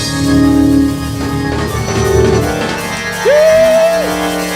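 Church worship music on keyboard with drums: held chords, and one loud note that swoops up and holds for about a second, a little over three seconds in.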